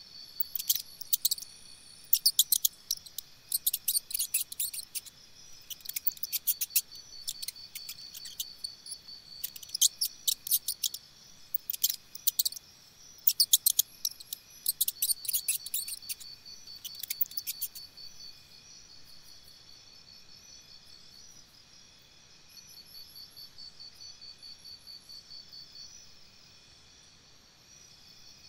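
Insects, cricket-like, chirping in steady pulsing trills, with clusters of sharp high clicks that stop about 18 seconds in.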